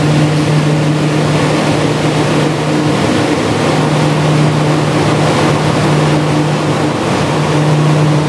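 Loud, steady machinery noise: an even rushing sound over a constant low hum that never pauses.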